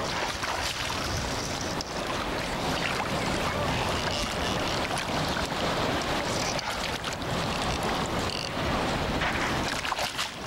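Steady rush of wind on the microphone over sea water lapping in the shallows.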